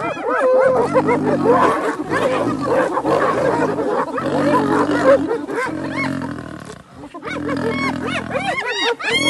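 Spotted hyenas giggling and whooping in many overlapping rising-and-falling calls, with deep growls coming and going, from a lion and the hyenas squabbling over a kill. There is a short lull about seven seconds in.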